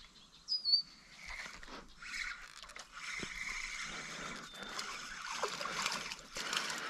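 Fishing reel being cranked to bring a small hooked fish in to the bank, with faint scraping and water sounds as the fish is drawn to the surface. A short high whistling note sounds about half a second in.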